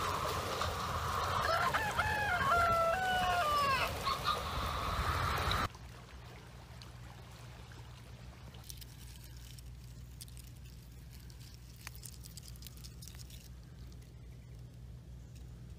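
A rooster crows several times over a steady rush of noise, which cuts off suddenly about six seconds in. After that there is only a quiet outdoor background with faint ticks.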